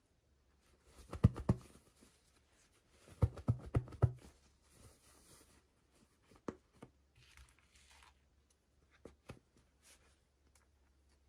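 Hands handling and opening small toy packaging: a cluster of sharp clicks and knocks about a second in, another just after three seconds, then short rustling and a few light ticks.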